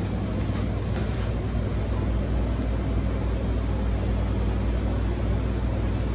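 Car engine idling, a steady low hum heard from inside the cabin, with a couple of faint clicks in the first second.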